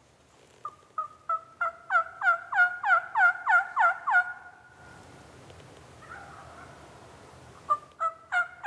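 Turkey yelping: a run of about a dozen short notes, each falling in pitch, about three a second and getting louder, then a quiet gap and a second run starting near the end.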